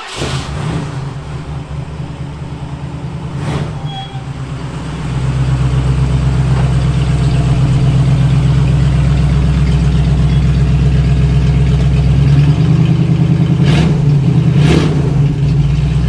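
1947 Ford pickup's engine running with a deep, pulsing exhaust rumble as the truck pulls out and drives past, growing louder about five seconds in, with a few sharp knocks along the way.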